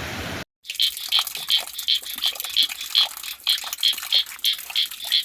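Steady heavy rain that cuts off abruptly about half a second in. Then comes a high, rhythmic chirping, about three chirps a second, over faint trickling water.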